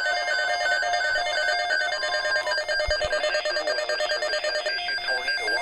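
Electronic ringing tone pattern, several steady pitches pulsing about four times a second, like a telephone ring.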